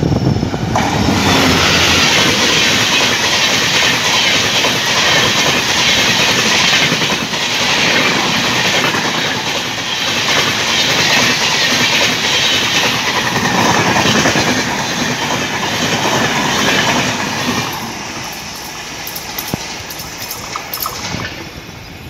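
Express train of LHB passenger coaches, hauled by a diesel locomotive, passing at speed close by: a loud rush of wheels on rails with a clickety-clack over the rail joints. It fades about 18 seconds in as the train draws away.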